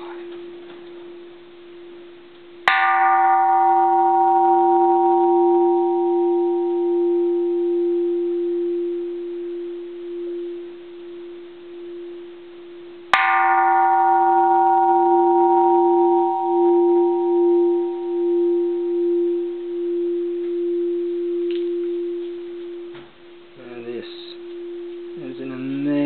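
Bronze Japanese Buddhist temple bell, cast in 1625, struck lightly twice, about three seconds in and again some ten seconds later. Each strike rings with a cluster of bright overtones that fade over several seconds, above a low hum that carries on unbroken and pulses slowly as it sustains.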